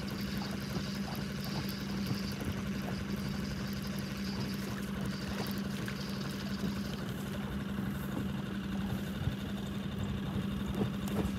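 Boat motor running steadily at low trolling speed, an even hum.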